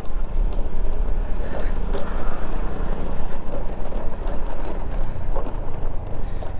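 Motorcycle riding on a rough, potholed road: steady engine drone under heavy wind rush and road rumble on a helmet-mounted camera microphone.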